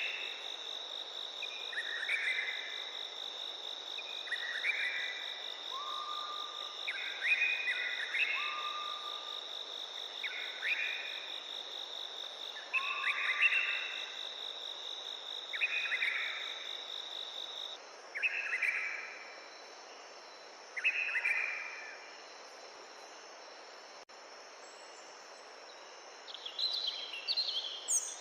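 Forest night-and-day ambience: a steady, high-pitched insect trill that stops about two-thirds of the way through, over an even background hiss. A short animal call repeats every two to three seconds and is the loudest sound, with a quick burst of chirps near the end.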